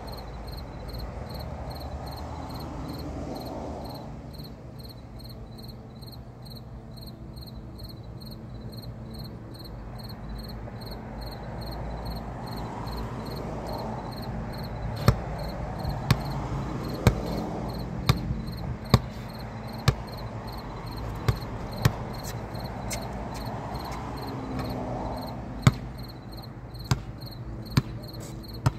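A basketball bouncing on a concrete court, a dozen or so sharp, unevenly spaced bounces starting about halfway through, over steady, evenly repeating insect chirping.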